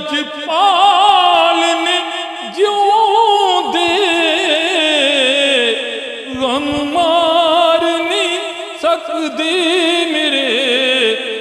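A man singing a naat into a handheld microphone, holding long drawn-out notes that waver in pitch, with two short breaths between phrases.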